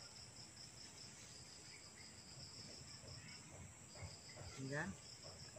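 Faint insect chorus, a steady high trill of crickets pulsing about five times a second, with a brief faint voice rising in pitch near the end.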